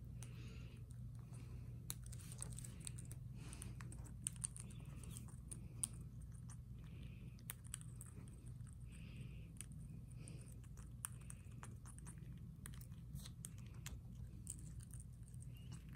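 Quaker parrot cracking and nibbling a seed-cluster Nutri-Berry with its beak: a stream of small, sharp, irregular crunches and clicks over a low, steady hum.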